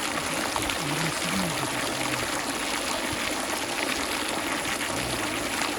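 Steady hiss of running or falling water, even and unbroken, with faint voices in the background.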